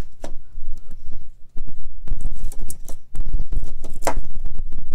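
Handling noise on a phone's microphone: uneven low rumbling and thumps, with a few sharp clicks, the loudest about four seconds in.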